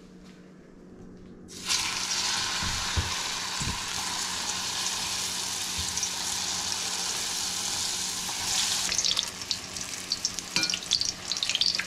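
Hot oil sizzling as lumpia (spring rolls) go into a pan for deep frying. The sizzle starts suddenly about two seconds in and holds steady, then turns to sharper crackling with clicks near the end.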